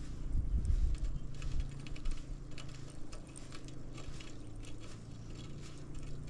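Light, irregular clicking and ticking from a pedal boat's pedal drive as it is pedalled, over a low steady hum, with low rumbling from wind on the microphone in the first second or so.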